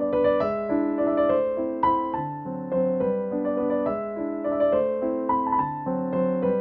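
Background piano music: a continuous melody of notes played over chords.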